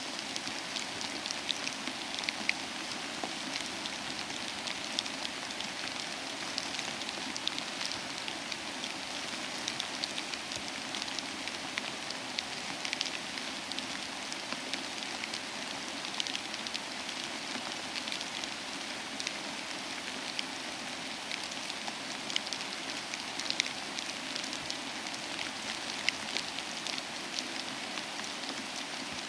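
Icy rain and sleet falling and pattering on surfaces: a steady hiss dotted with many small, sharp ticks of ice pellets striking.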